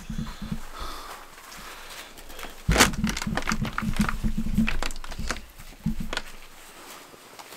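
Footsteps trudging through deep snow: irregular crunches and thumps, heaviest from about three seconds in and dying away near the end.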